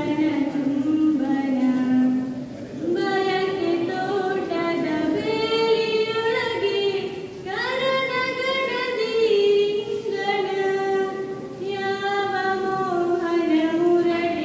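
A girl singing solo into a microphone with no instruments heard: long held notes that slide between pitches, broken by short breath pauses about two and a half, seven and a half and twelve seconds in.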